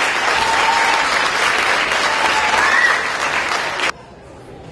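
Audience applauding steadily, cut off suddenly near the end.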